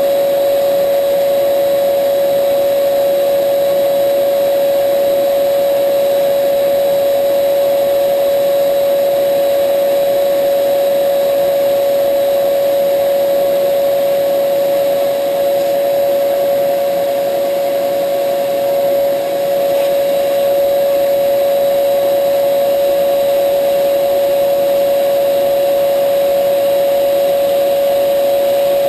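Bridgeport milling machine running steadily, a constant whine over a steady noise, dipping slightly twice near the middle.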